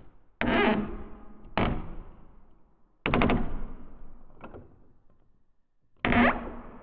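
Creaking wooden door: five short creaks, each starting suddenly and fading within about a second, the fourth fainter than the rest. The creak about three seconds in breaks into a quick run of clicks.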